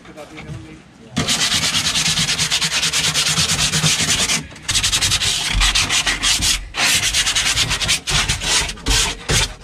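Sandpaper rubbed by hand on the plywood panels inside a wooden boat hull, in fast back-and-forth strokes. It starts about a second in and continues in spells with brief pauses.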